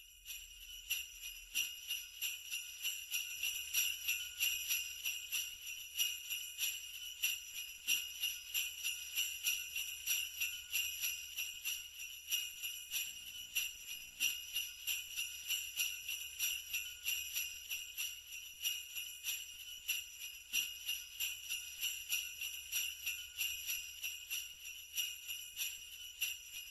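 Sleigh bells shaken in a steady rhythm, about three shakes a second, fading in over the first second.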